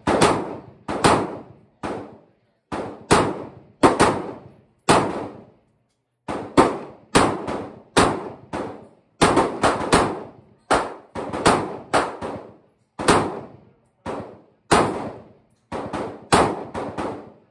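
Omni Maxx AR-15 pistol firing in steady semi-automatic fire, about two shots a second with a short pause about five seconds in, each sharp crack echoing briefly.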